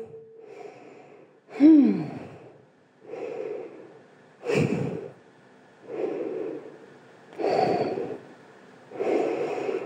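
A woman breathing audibly in and out, about one breath sound every one and a half seconds, as she relaxes after exertion. The first exhale, about two seconds in, is a voiced sigh falling in pitch.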